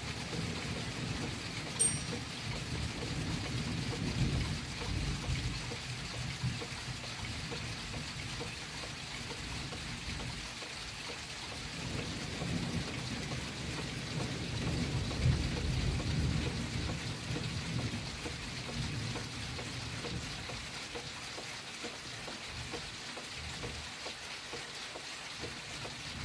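Steady rain with thunder rumbling low, swelling about four seconds in and again from about twelve to seventeen seconds in. A single sharp click sounds about two seconds in.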